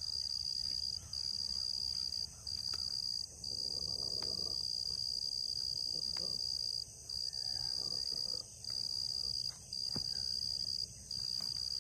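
Steady high-pitched insect chorus, a constant buzzing trill that breaks off briefly every second or two, with a few faint knocks.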